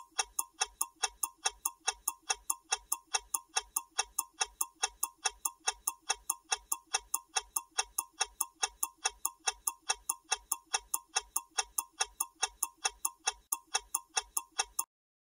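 Clock-ticking sound effect for a quiz countdown timer: a steady, even tick about three times a second, stopping shortly before the end.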